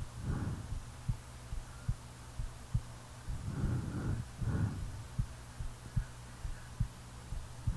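A sleeping person's heartbeat, heard as a run of soft low thumps over a steady low hum. Snoring breaths swell in at the very start and twice more around the middle.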